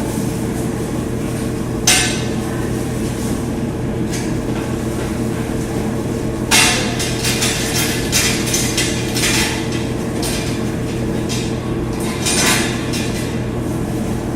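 Knocks and clinks of a bulk vending machine head being handled and taken apart: one sharp knock about two seconds in, a run of rattling clinks from about six to nine seconds, and another clink near the end, over a steady low hum.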